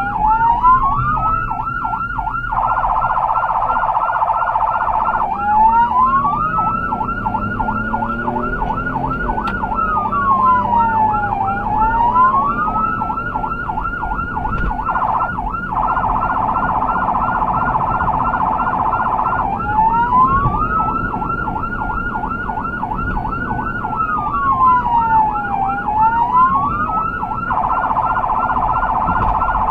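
Electronic emergency-vehicle siren sounding continuously, a fast warble joined in three stretches by a slow wail that rises, falls and rises again. Engine and road noise runs underneath.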